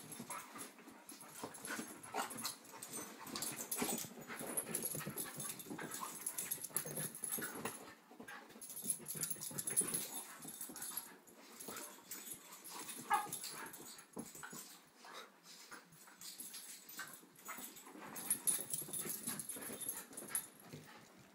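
Two dogs play-fighting and chasing each other over furniture: dog whines and play noises over irregular scrabbling and thumping of paws.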